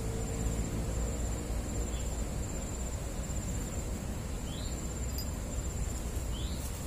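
Insect trilling steadily at a high pitch over a low steady rumble, with a few short faint chirps.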